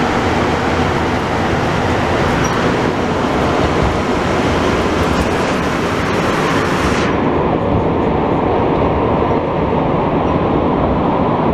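Montreal Metro MR-73 rubber-tyred train heard from inside the car, running loud and steady as it moves from the station into the tunnel. About seven seconds in, the high hiss cuts off suddenly and the low rumble carries on.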